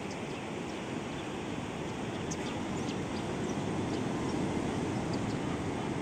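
Surf breaking along a sandy beach: a steady rushing wash of waves that swells slightly.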